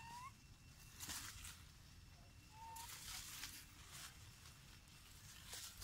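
Faint outdoor ambience with two short, rising high-pitched animal calls, one at the start and one a little before the middle, and two brief rustles of dry leaves.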